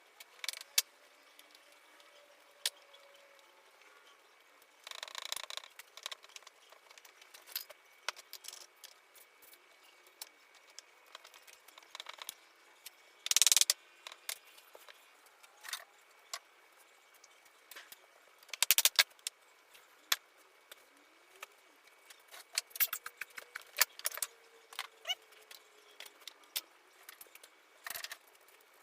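Scattered sharp taps and knocks of wooden shutter parts being handled and fitted together, with two short scraping bursts, about 5 and 13 seconds in, and a dense cluster of clicks near the 19-second mark.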